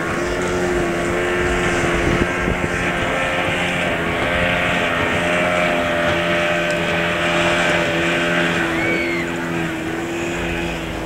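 A motorboat engine running steadily, its drone wavering slightly in pitch, over a steady rushing of wind and water.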